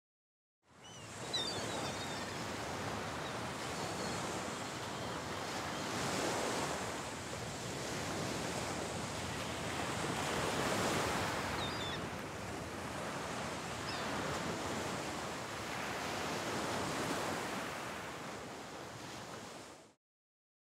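Sea waves washing onto a beach, the surf swelling and ebbing every few seconds, with a few faint short gull calls. It fades in about a second in and stops abruptly just before the end.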